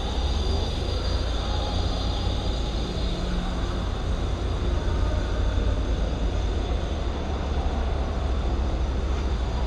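Steady low rumble with a hiss over it, an even outdoor background noise with no distinct events.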